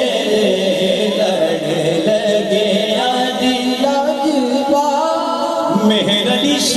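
A man singing an Islamic devotional kalam, drawing out long held notes that waver and slide between pitches.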